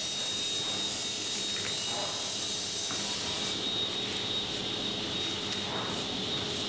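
Power drill running steadily, a constant mechanical whir with a steady high whine.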